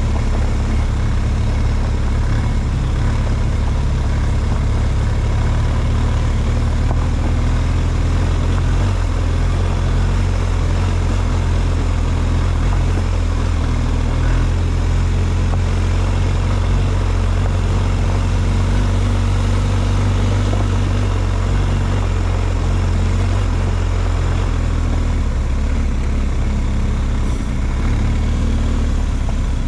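Vehicle engine running steadily, a low even drone with little change in pitch or loudness.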